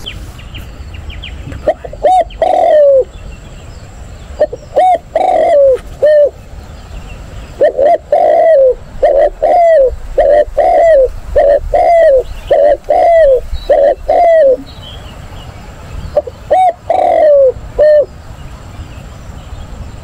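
Dove cooing loudly: groups of short coos that rise and fall in pitch, with a long run of about a dozen in quick succession in the middle.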